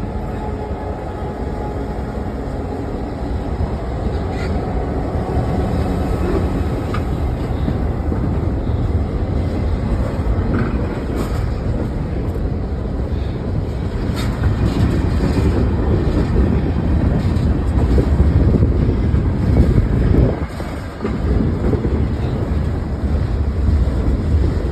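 Huron and Eastern Railway train rolling past close by: a steady low rumble of wheels on the rails that grows a little louder through the middle, with a brief drop near the end.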